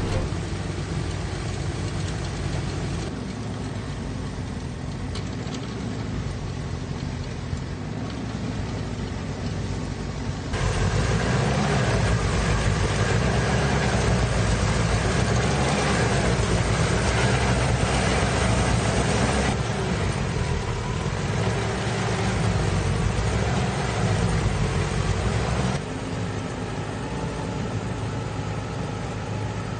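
Tractor engine running steadily as it drives a locally built, tractor-mounted snow blower, with the steady rush of the blower throwing snow. The sound gets louder about a third of the way in and drops back near the end, changing abruptly each time.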